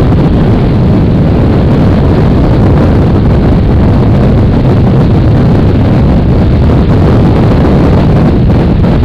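Steady, loud wind rush on the microphone of a motorcycle at highway speed, with the drone of the Honda NC's engine and tyres mixed in; the recording is loud enough to sound somewhat distorted.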